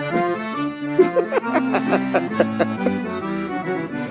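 Accordion (gaita) playing a lively melody over sustained chords in gaúcho style: the instrumental lead-in to a trova verse.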